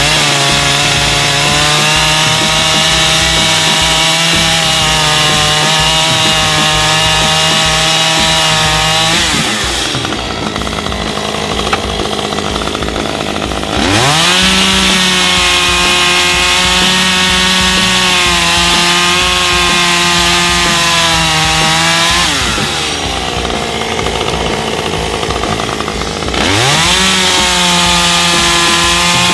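Husqvarna top-handle two-stroke chainsaw cutting through a log at full throttle in three runs. The engine note climbs steeply into each cut and falls away between them.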